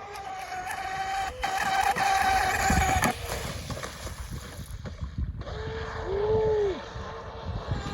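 SSS 2030kv brushless electric motor of a 4S mono RC boat whining at speed on the water. The steady whine cuts off about three seconds in, then comes back at a lower pitch that dips and rises again as the throttle changes.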